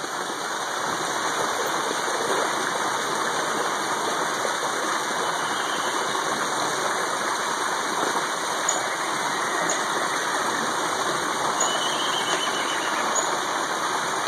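Small waterfall pouring steadily into a koi pond, an even rushing splash with no breaks.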